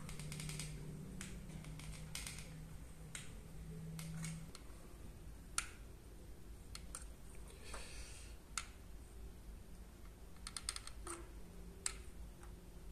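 Caulking gun being pumped to lay fire-stopping mastic around a pipe: scattered sharp clicks of the trigger and plunger rod, some in quick runs of several.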